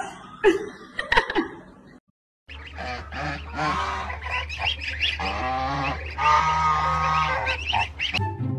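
Repeated honking animal calls over a steady low hum, after a few sharp knocks and a brief break in the sound about two seconds in.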